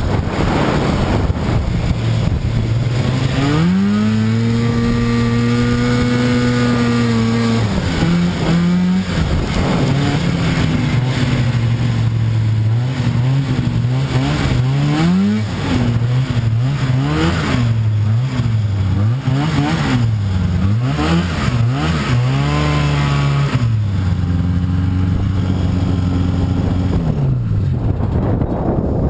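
Vintage snowmobile's two-stroke engine heard from the rider's seat. It revs up about three seconds in and holds high, then the throttle is worked up and down over and over. It picks up again and finally winds down near the end as the sled comes to a stop.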